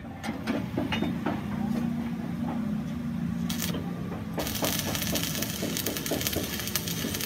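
Stick arc welding on a steel tractor front blade: the arc strikes a little over halfway through and then crackles and sizzles steadily. Before it, a low steady hum with scattered knocks.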